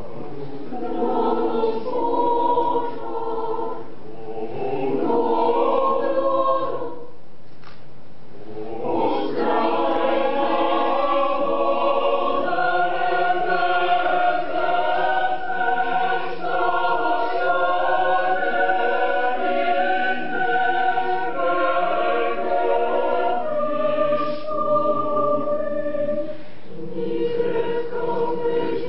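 Choir singing a cappella in sustained, shifting chords of several voices. Two phrases are separated by a silent gap of about two seconds, some seven seconds in, and there is a shorter breath near the end.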